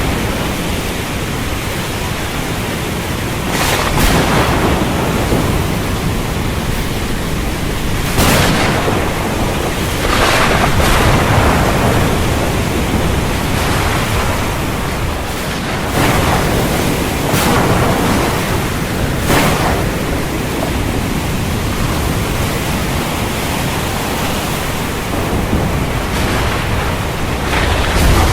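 Stormy sea: a steady roar of wind and heavy surf, rising in short surges every few seconds.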